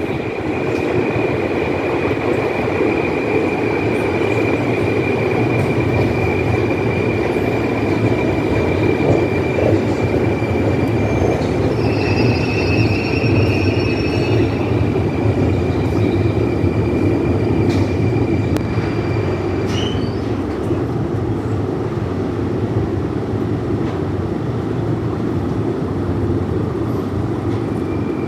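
Very long metro escalator (126 m) running while being ridden up: a steady mechanical rumble with a thin, high squeal over it that stops about two-thirds of the way through.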